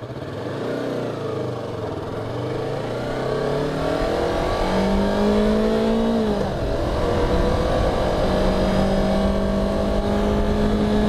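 Yamaha YZF-R3's parallel-twin engine pulling away, its revs climbing. About six and a half seconds in the pitch drops at a gear change, and the engine then runs at a steady note.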